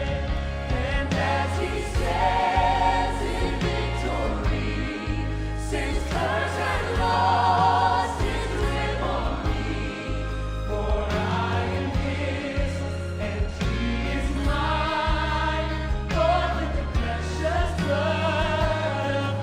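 A vocal ensemble singing a hymn with vibrato over instrumental accompaniment with a deep, steady bass.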